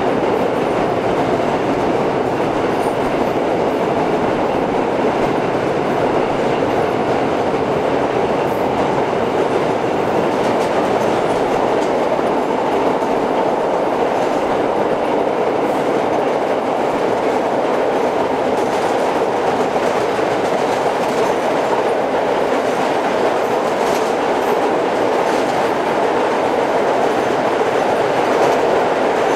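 A restored 1930s R1–R9 series subway car running at speed on an express track: a steady rumble of wheels on rail, with occasional faint clicks at the rail joints.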